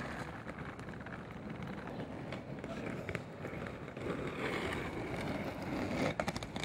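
Steady outdoor street noise, with a cluster of sharp clicks near the end.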